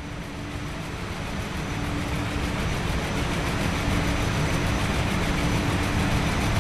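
Recorded rotary printing press machinery: a dense mechanical rumble with a steady hum, swelling louder throughout.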